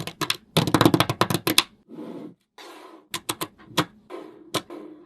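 Rapid runs of sharp clicks and clacks, like small hard objects being tapped or snapped, thick over the first second and a half, then a soft rustle with a few scattered clicks.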